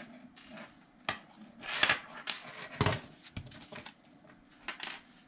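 Hard plastic end cap being worked off a tubular solar power bank's casing and handled on a tabletop: irregular clicks, knocks and rubbing, with several louder knocks between about two and three seconds in.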